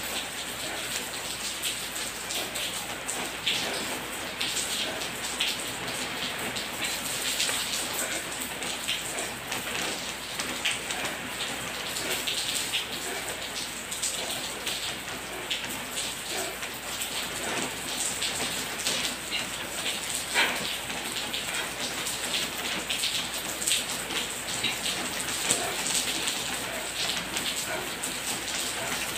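Steady pattering noise made of many small, irregular ticks, with no speech or music.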